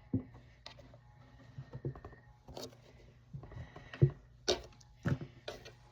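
Squishy toys and their storage containers being handled and set down: irregular light knocks, taps and rustling, the loudest knock about four seconds in.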